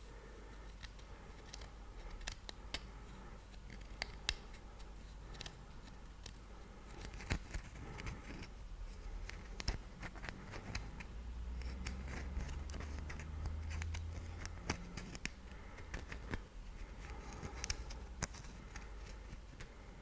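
Small figurine handled in the fingers close to the microphone: an irregular run of soft, sharp clicks and light scratches.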